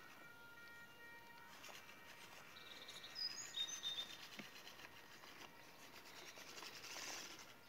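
Birds chirping, a few short high notes about three seconds in, over faint outdoor background noise.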